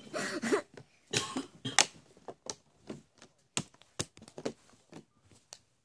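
Clear plastic crinkling and clicking under a baby's hands: irregular sharp crackles and taps throughout, with a short baby vocalisation at the start.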